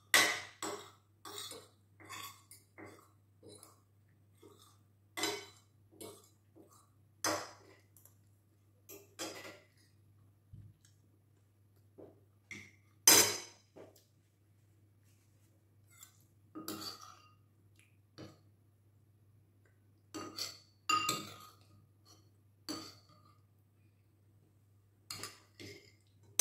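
Metal spoon and fork clinking and scraping against a ceramic plate during eating, in separate irregular strokes, with one louder clink about halfway through.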